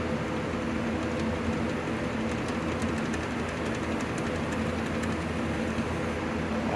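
Steady rushing, fan-like noise with a low electrical hum underneath, and a scatter of faint light ticks through the middle.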